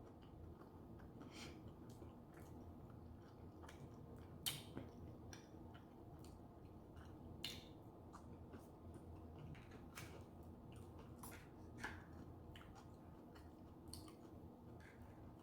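Quiet chewing of a king crab sushi roll, with soft wet mouth clicks every couple of seconds over a faint low room hum.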